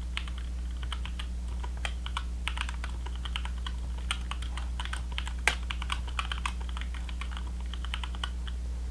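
Typing on a Kemove Dierya 60% mechanical keyboard with Cherry MX Black switches and some of its internal stuffing taken out: irregular key clacks, one louder stroke about five and a half seconds in, over a steady low hum.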